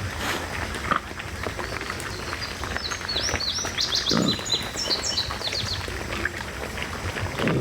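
Wild hogs grunting, two short low grunts, about four seconds in and near the end, over scattered rustling and crunching in leaf litter. A bird sings a quick run of high falling chirps about three seconds in.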